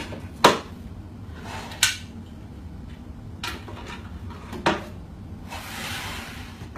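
Four sharp knocks and clinks of hard objects being handled, a second or more apart, over a low steady hum, with a short soft rustle near the end.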